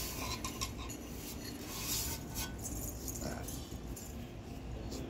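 Scattered light clicks and clinks of kitchen utensils being handled, over a low background hiss.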